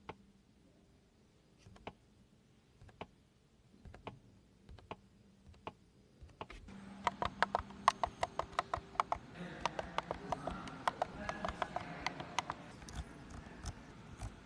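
Sharp clicks or taps: a few spaced ones at first, then from about seven seconds in a quick run of them, several a second.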